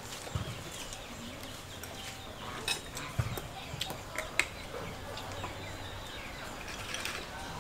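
A few sharp clicks and taps as glass bottles and dishes are handled on a wooden table, over faint bird calls.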